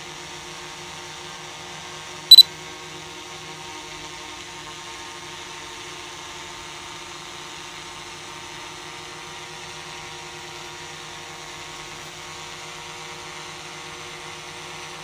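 DJI Mavic 2 Pro quadcopter hovering overhead, its propellers giving a steady hum of several tones. About two seconds in, one short, loud, high beep.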